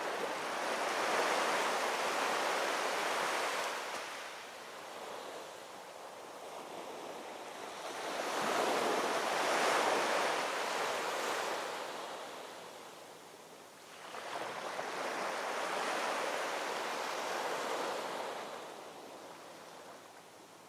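Small sea waves washing in and out at the shore in three slow surges, about seven seconds apart, fading near the end.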